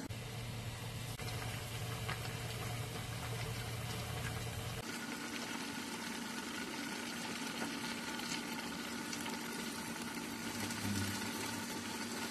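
Spicy pork rib stew (mulgalbi) boiling in a frying pan on the stove: a steady bubbling hiss over a low hum, the hum changing about five seconds in.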